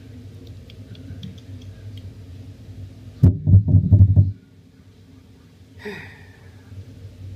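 A quick run of about six knocks on the tabletop, lasting about a second, from a hand tapping on the table. A short sound falling in pitch follows near the end.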